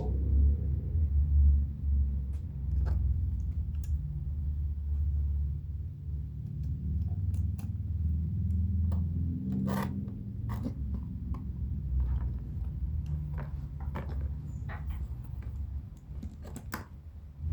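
A large knife being worked through a piece of leather on a bench: a low rumble of handling and pressure with scattered light clicks and scrapes, one sharper click about ten seconds in and a few more near the end.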